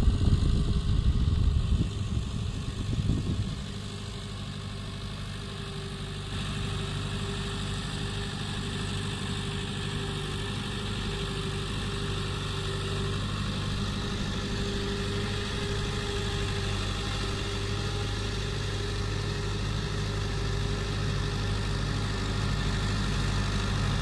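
Fiat 640 tractor's four-cylinder diesel engine running steadily under load as it pulls a laser land leveler, louder and rougher for the first three seconds or so, then an even drone that grows a little louder near the end as the tractor comes closer.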